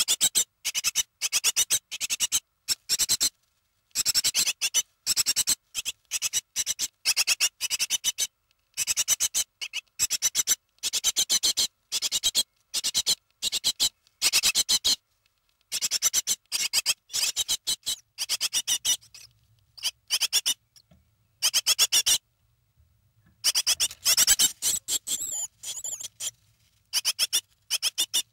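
Nestling birds, about three weeks old and not yet fledged, calling in rapid runs of high, thin chirps broken by short pauses.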